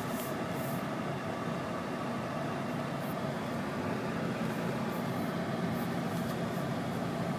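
Steady drone of a car heard from inside the cabin: engine and road noise, even throughout.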